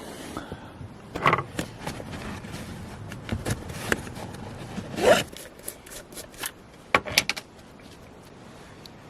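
Things being handled and set down: a string of clicks, knocks and rustles, with a short rising rasp about five seconds in.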